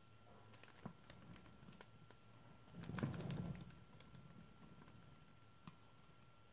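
Office chair base turned by hand, a short low rumble of the swivel and casters about three seconds in, with faint scattered clicks on either side over quiet room tone.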